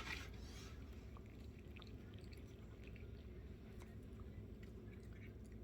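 A cat chewing a treat: faint, scattered small clicks and crunches over a low steady room hum.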